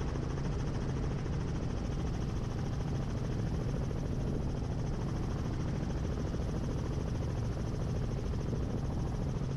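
Helicopter in flight: a steady, even drone of rotor and engine noise heard from inside the cabin.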